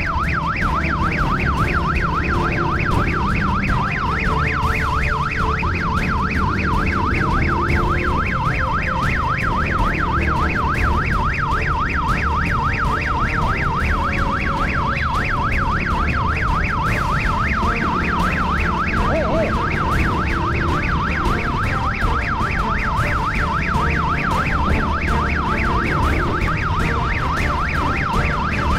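Police motorcycle siren wailing in a fast, even warble without a break, over the low rumble of the bike's engine and road noise during a pursuit.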